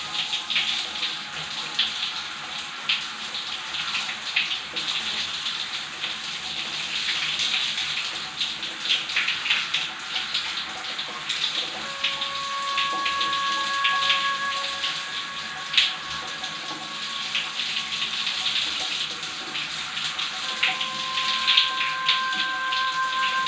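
Shower water running and splashing, with many short sharp splatters and drips over a steady hiss of spray.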